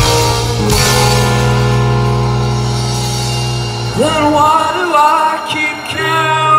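Live rock band in an arena playing a held chord over a deep bass note. About four seconds in the bass drops away and a sung vocal line swells up. The bass chord comes back in near the end.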